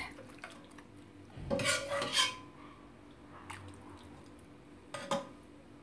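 Metal ladle clinking and scraping against a pot and a serving dish as cooking juice and onions are spooned over chicken thighs, with a cluster of clatter about two seconds in and a sharp knock near the end.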